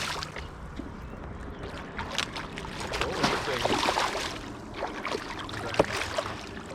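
Splashing water and irregular knocks and rattles in a canoe as a hooked smallmouth bass is netted alongside.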